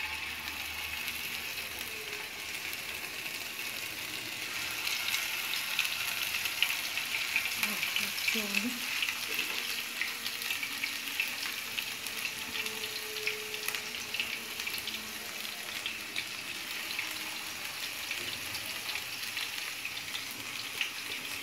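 Meatballs sizzling and crackling as they shallow-fry in hot oil in a frying pan, the sizzle getting a little louder a few seconds in as more go into the pan.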